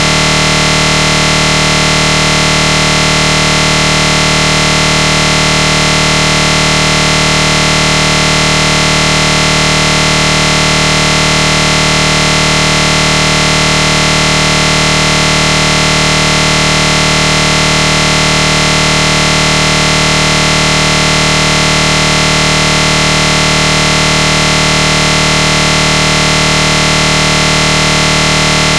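A loud, perfectly steady buzzing drone, many tones at once, with no change at all.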